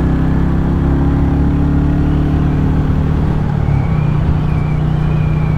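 Royal Enfield Classic 350's single-cylinder engine running at cruising speed on the road, its note easing slightly over the first few seconds and then holding steady, over road and wind noise.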